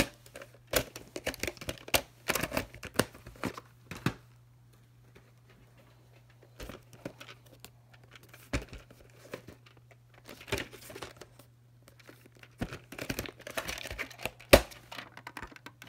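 Plastic clamshell VHS cases and a cassette being handled: scattered plastic clicks, clacks and rustling, with a lull about a third of the way in and the loudest sharp clack near the end.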